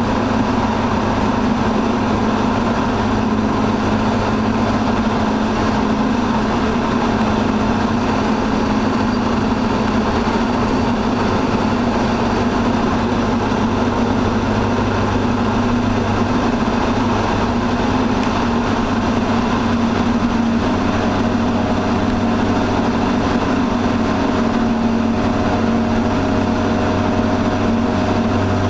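Naturally aspirated Volvo 245 with a 3-inch exhaust cruising at highway speed, heard from inside the cabin: a steady engine and exhaust drone mixed with the car's own running noise. A faint higher tone joins about two-thirds of the way in.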